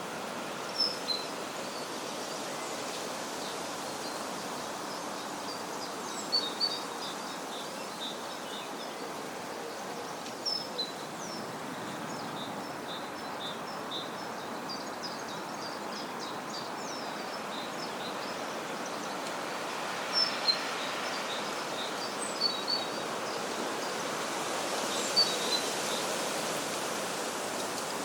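Countryside ambience: a steady rushing background with small birds chirping in short scattered bursts, the loudest about a second in and again around a third, two-thirds and near the end of the stretch.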